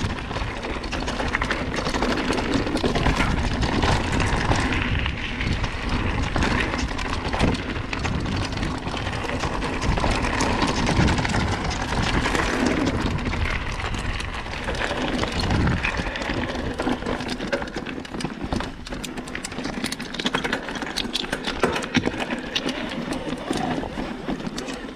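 Mountain bike running down a rough, stony trail descent: continual clatter and rattling of tyres and bike over the ground, with a low rumble that eases about two-thirds of the way in.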